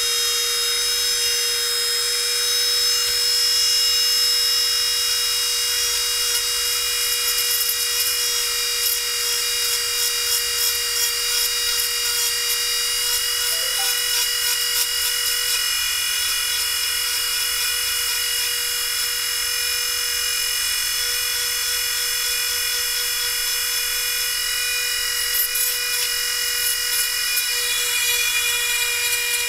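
Handheld Minicraft rotary tool running steadily with a high whine, its fine bit grinding the plastic of a headphone battery door, with patches of scratchy contact noise about a third of the way in and near the end.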